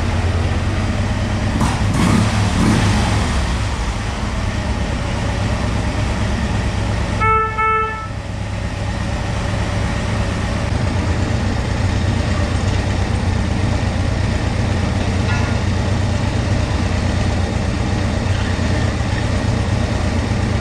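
A Harley-Davidson Electra Glide's 1690 cc V-twin idling steadily. About seven seconds in, its horn sounds two short beeps, as part of a horn check.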